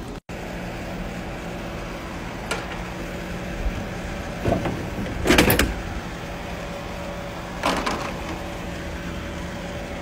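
A steady machine hum, with several short scraping and knocking handling noises, the loudest cluster about five seconds in.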